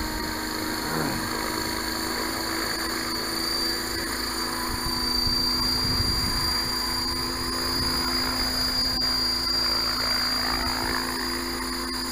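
HobbyKing T-Rex 600 clone radio-controlled helicopter's motor and main rotor running at a steady pitch as it lifts off and hovers just above the pavement.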